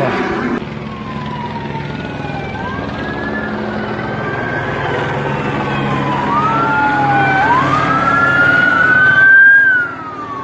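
Police sirens wailing: at least two overlapping siren tones sweeping slowly up and down in pitch, getting louder toward the end before dropping off suddenly.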